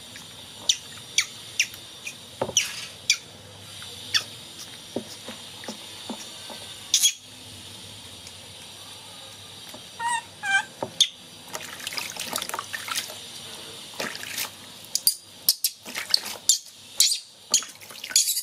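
Water splashing and dripping in a tub of soapy water as a baby monkey is washed by hand, with many short sharp splashes, busier in the second half. A short run of high squeaks sounds about ten seconds in.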